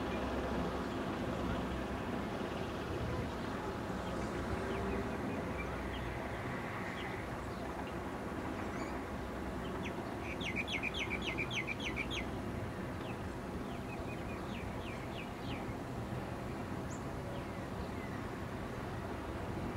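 Steady low rumble of NSW 81 class diesel-electric locomotive 8169, an EMD V16 two-stroke, hauling a container train. About ten seconds in a bird chirps a quick run of short high notes, and a few more chirps follow.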